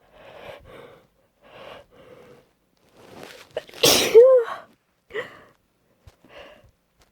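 A woman's loud sneeze about four seconds in, after a few short, breathy inhalations as it builds. Two shorter breaths follow it.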